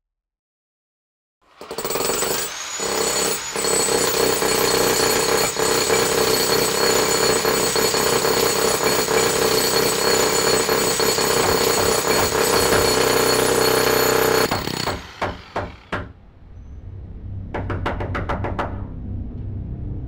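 Jackhammer pounding loudly and continuously, starting abruptly after a second or so of silence. It cuts out after about thirteen seconds with a few stuttering bursts, leaving a low rumble.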